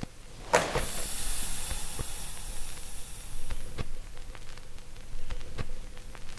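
A sudden rush of hiss about half a second in, holding for about three seconds before it stops, with scattered sharp clicks around it.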